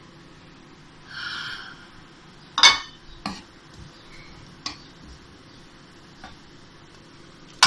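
Grated carrots being stirred in a non-stick wok with a wooden spatula: a brief hiss about a second in, then five sharp knocks and clinks against the pan, the loudest about two and a half seconds in and another right at the end.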